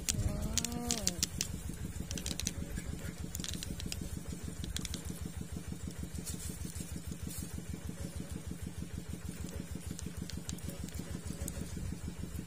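A small engine idling, with an even, fast chugging that holds steady throughout.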